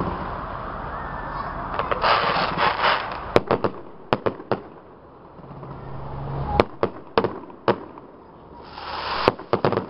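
Aerial firework shells bursting overhead. A spell of crackling is followed by about ten sharp bangs, some in quick succession, with more crackling near the end.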